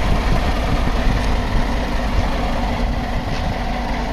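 Scania R 450 truck's 13-litre inline-six diesel engine idling steadily.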